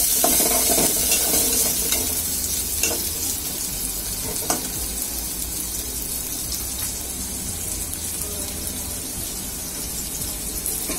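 Sliced onion and chilies sizzling in hot oil in a metal pot, a steady hiss that eases slightly. A spoon stirs and scrapes against the pot at the start, and there are a couple of single light metal knocks later.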